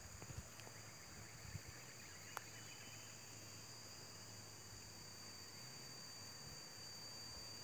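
Faint, steady high-pitched drone of insects, with a few soft knocks in the first two seconds and one sharp click about two and a half seconds in.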